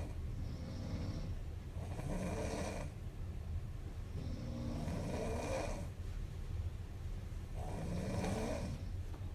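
Young woman snoring in her sleep, three slow snoring breaths about three seconds apart, each lasting about a second, over a steady low hum.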